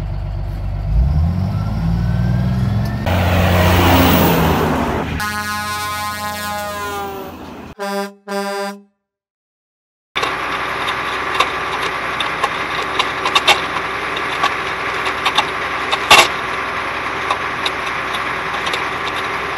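A vehicle engine revving up with a swelling rush of noise, then a long horn-like tone and two short honks, and after about a second of silence a CAT 14G motor grader's diesel engine running steadily with scattered clicks and knocks.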